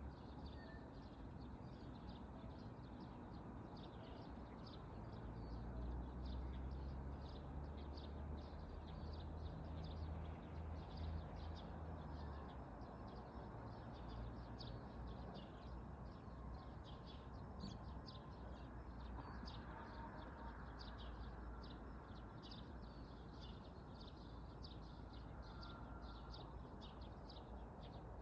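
Small birds chirping over and over, short high chirps a few times a second, against a faint steady outdoor background; a low rumble swells up from about five to twelve seconds in.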